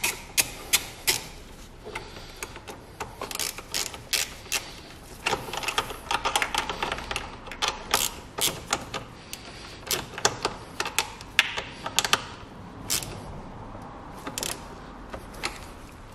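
Hand ratchet wrench clicking in short runs as it tightens the negative terminal clamp on a car battery, with light taps of the tool on the metal.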